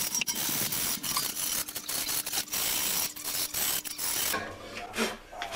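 Metal wire brush scrubbing the gasket channel of a wood stove door clean of the old door seal, in fast rasping strokes that stop about four and a half seconds in.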